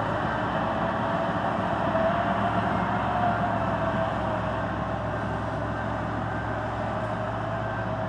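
Case 1650M LGP bulldozer running steadily under load as it pushes a blade-load of soil, with a whine that wavers a little in pitch over the engine's hum.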